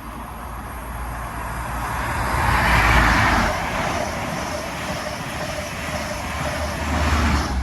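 Class 43 HST diesel power car passing at speed, its engine and turbocharger whine building to a peak about three seconds in and running on before cutting off suddenly near the end.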